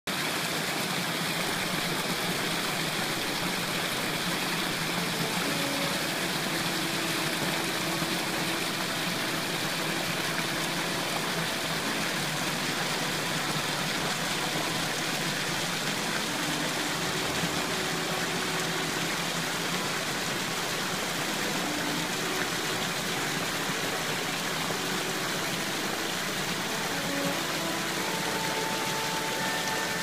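Small forest stream pouring over a low rock ledge in a little cascade: a steady rush and splash of falling water.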